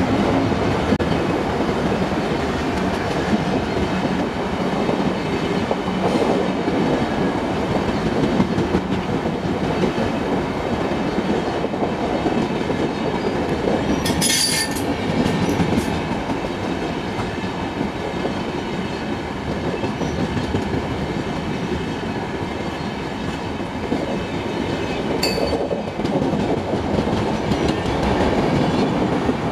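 Indian Railways express passenger coaches running steadily past on the adjacent track, the noise of wheels on rail continuing throughout. A brief high-pitched burst cuts through about halfway, and a shorter one comes near the end.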